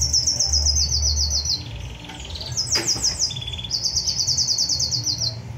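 Caged songbird singing fast, high trills of rapidly repeated notes in three phrases, the last one the longest. A low hum sounds underneath during the first phrase, and a single click comes near the middle.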